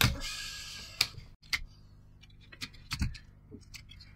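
Small irregular clicks and taps of hands handling a Polaroid Zip printer's opened print mechanism, with a brief scraping rustle in the first second.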